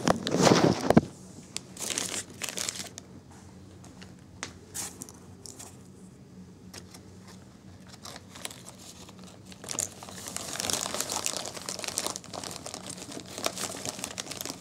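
Clear plastic parts bags crinkling as they are handled, loudest and closest in the first second, with scattered crackles, then a dense crinkling rustle from about ten seconds in as the bag is pushed among foam packing peanuts.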